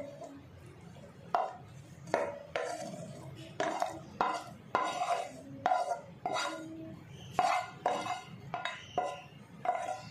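A spatula scraping sautéed onion and tomato out of a non-stick pan and knocking against the pan rim and a steel mixer-grinder jar: a dozen or so sharp, irregular clacks, each with a short metallic ring.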